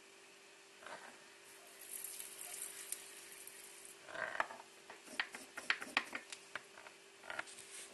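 Faint handling sounds at a workbench: scattered sharp little clicks and taps, a short rustle about four seconds in, and a brief hiss about two seconds in, over a steady low hum.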